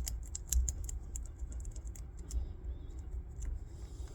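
Light, irregular clicks and scuffs of a small plastic hazard switch being handled while its corroded contacts are rubbed clean with a pencil eraser, over a low steady hum.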